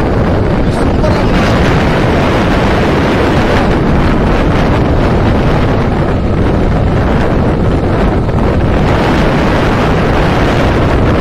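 Steady wind rush over the microphone of a moving motorcycle, with the bike's engine running underneath.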